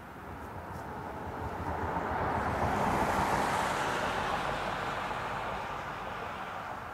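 A car passing on the road, its tyre noise swelling to a peak about three seconds in and then fading away.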